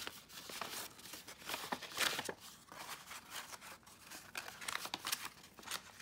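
Paper rustling and crinkling on and off as cut pieces of envelope paper are handled and positioned.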